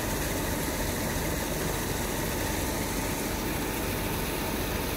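Small truck's engine idling steadily.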